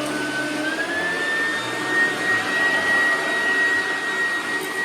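1996 Oreck XL9200 upright vacuum cleaner running, a steady motor hum with a high whine that climbs a little about a second in and then holds steady.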